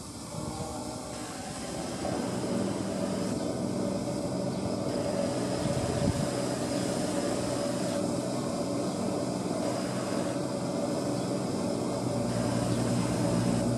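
DIY quadcopter's motors and propellers buzzing steadily as it flies back on GPS return-to-launch and hovers in position hold overhead. The buzz grows louder about two seconds in as the quadcopter arrives, then stays even.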